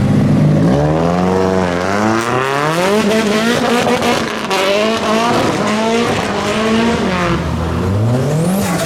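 A modified car's engine revved hard as it leaves, its pitch climbing and dropping again and again, with tyre squeal partway through.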